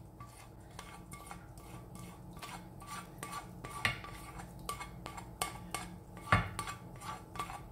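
A metal spoon scraping and tapping inside a pan, knocking fried mustard seeds and dal out into a stainless-steel bowl: a string of light clinks and scrapes, with one louder knock about six seconds in.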